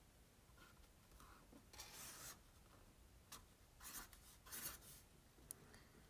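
Pen drawing on a paper notepad: a few faint scratching strokes of the tip across the paper, the longest about two seconds in.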